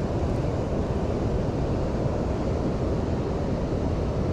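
Steady low rushing noise with no distinct events, the kind made by flowing river water and wind on the microphone.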